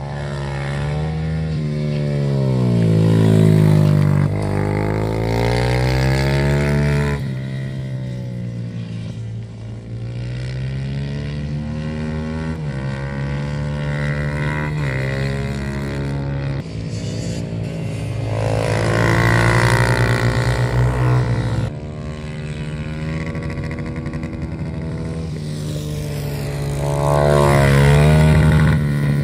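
Yamaha 150 cc racing motorcycle engine revving up and down through the gears as it laps a circuit, its pitch rising and falling. It is loudest as the bike passes close, about three seconds in, about two-thirds of the way through, and near the end.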